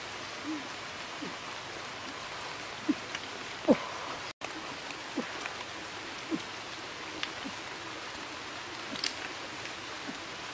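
Steady rush of water with scattered drips and small plops, one louder plop about three and a half seconds in.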